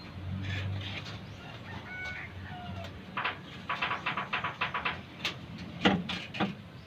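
Chickens clucking, with a quick run of clucks in the middle, over a low steady hum.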